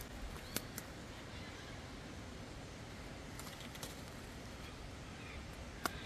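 Footsteps of a person walking a bush track, heard as a handful of sharp, irregular clicks, the loudest near the end, over a steady outdoor hiss. Faint bird calls sound in the background.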